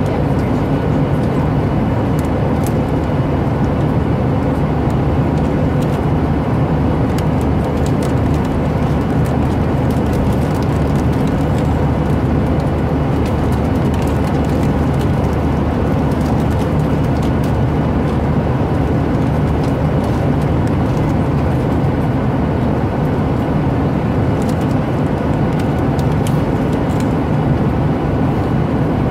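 Steady drone of an airliner cabin, a constant low roar that does not change, with faint scattered crackles from a pretzel bag being handled.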